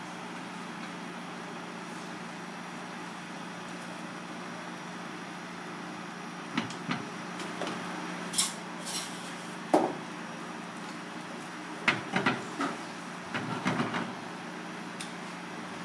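A cast-iron skillet of fish simmering on a gas burner under a steady hiss, with a scattered run of sharp knocks and clinks from about six seconds in as the pan and utensils are handled.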